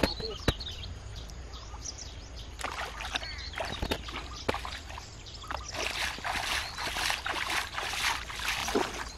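Pond water splashing and sloshing as a person wades and sweeps water with her hands, heaviest over the last few seconds, with a few sharp clicks early on.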